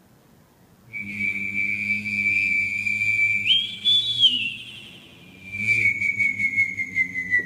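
Chinese classical whistling (xiao) through a stage microphone. A single clear, high whistled note starts about a second in and is held steadily, leaps briefly to a higher note near the middle, breaks off, then returns and glides slowly downward.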